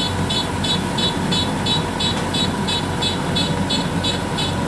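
Crawler combine harvester's engine running steadily under a rapid repeated electronic beeping, about three beeps a second, from the machine's warning beeper as it works back and forth, sinking in soft mud.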